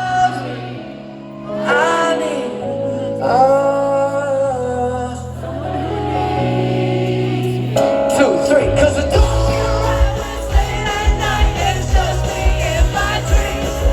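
Live pop band music: a male lead vocal sings long held lines over sustained keyboard chords. Drums and bass come in about eight seconds in with a steady beat.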